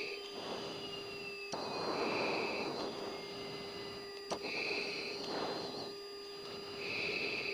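Breathing through an oxygen mask over the F-16 cockpit intercom, a hissing breath about every two seconds, over a steady electrical hum from the jet.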